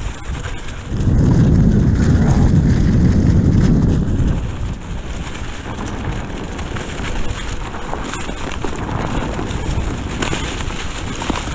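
Wind rushing over a hand-held action camera's microphone as it moves along on a Onewheel electric board. A heavier low buffeting runs from about one to four seconds in.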